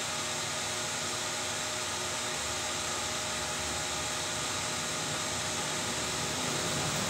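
Steady whooshing background noise, like a fan running, with a faint steady hum in it.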